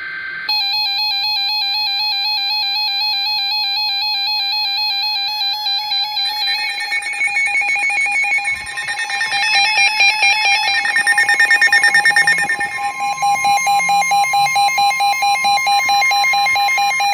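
Several NOAA weather radio receivers sounding their alert alarms at once. A warbling electronic siren tone is joined about six seconds in by further warbling and rapidly pulsing alarm tones, with a steady warning tone underneath in the second half. The alarms signal an incoming Special Marine Warning.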